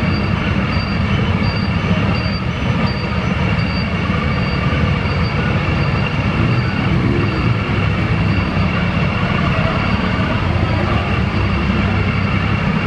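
Motorcycle engines running at low speed inside a ferry's enclosed steel vehicle deck, a steady low-heavy din, with a faint high beep repeating about twice a second.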